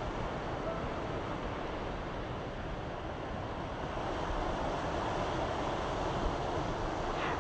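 Strong wind buffeting the microphone, a rumbling gusty noise, over the steady wash of ocean surf.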